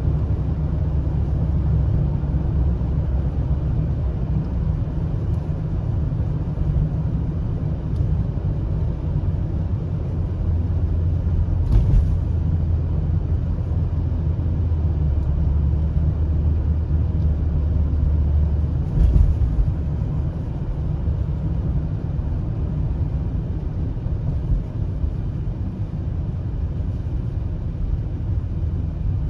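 A car on the move: steady low road and engine rumble, with two short jolts, one about twelve seconds in and another about seven seconds later.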